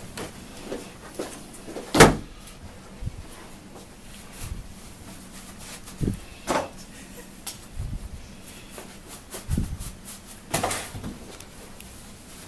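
Ring binders being moved about and set down on a metal filing cabinet: scattered knocks and thuds with some rustling, the loudest knock about two seconds in.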